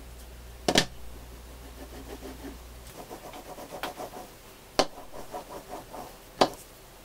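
A wooden rolling pin rolled back and forth over a soft clay slab between wooden guide sticks, pressing inlaid clay pieces flat, with three sharp knocks.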